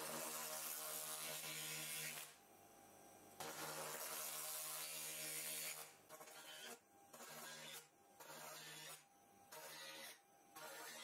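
Laser rust cleaner firing on a rusty steel threaded screw: a hissing, buzzing burn of the rust. It runs in two long bursts of about two seconds, then in quick on-off bursts of about half a second.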